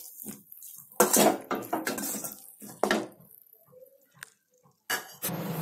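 A perforated metal slotted spoon scraping and clanking against a metal pot while stirring a thick masala of fried onions, spices and curd. There are several strokes in the first three seconds, the loudest about a second in, then light taps and a sharp knock near the end.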